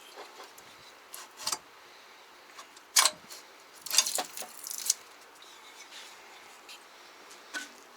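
Metal tools and engine parts being handled on a bench: a few sharp metallic clinks, the loudest about three seconds in, and a short clatter of clinks just after four seconds.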